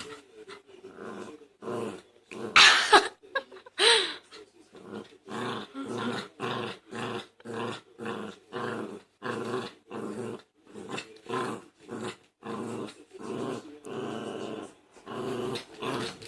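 Puppy growling in short, repeated bursts, about two a second, with two louder, sharper sounds about three and four seconds in.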